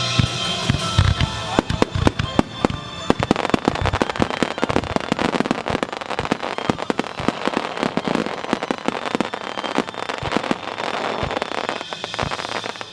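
A rapid barrage of aerial firework shells bursting, many sharp bangs a second over continuous crackling, heard at close range. Loudness drops near the end as the barrage thins.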